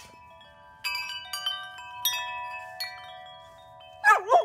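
Metal tube wind chimes, struck several times by a golden retriever nudging them, ring on in overlapping tones. Near the end the dog lets out a loud, wavering howl along with the chimes.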